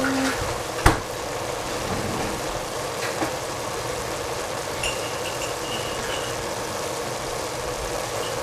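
A pot of cabbage and rice noodles cooking on the stove, a steady sizzling hiss, with one sharp click about a second in.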